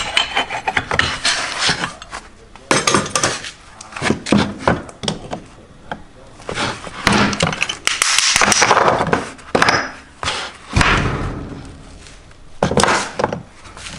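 Irregular metal knocks and clinks as aluminium casting molds for lead fishing feeders are opened and worked with pliers, with a longer scraping stretch a little past halfway.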